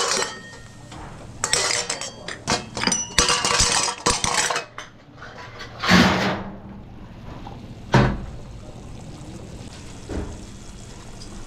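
Kitchen clatter of dishes, pots and metal utensils clinking and knocking together, with a louder clatter about six seconds in and a single sharp knock about two seconds later.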